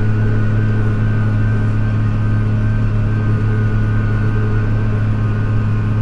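Case IH MX240 tractor's diesel engine running at a steady pitch while travelling on the road, heard inside the cab.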